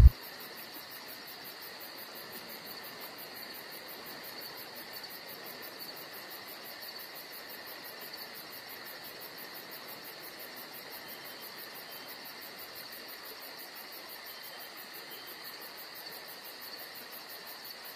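A steady insect chorus with a faint hiss, its even, fast pulsing unbroken throughout.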